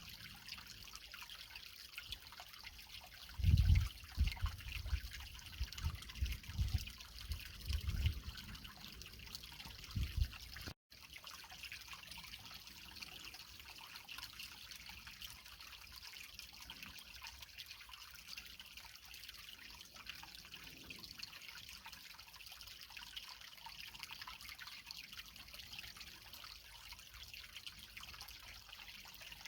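Creek water trickling and splashing over rocks in a steady hiss. For several seconds near the start, irregular low thuds sound under the water, the loudest first, and the sound drops out for an instant about eleven seconds in.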